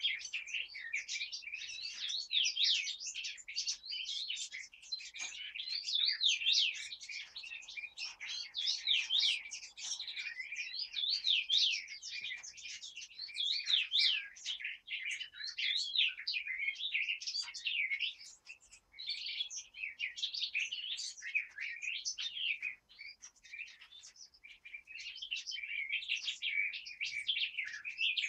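Forest birds singing in a morning chorus: many voices overlapping in a dense stream of quick chirps and warbled phrases, with a couple of short lulls.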